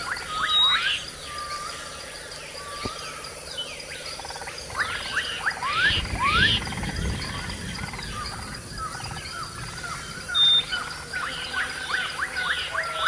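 Rainforest ambience: a dense chorus of short, quick rising chirps from many small animals, thinning out for a few seconds in the middle, over a steady high-pitched whine. A low rumble swells briefly around the middle.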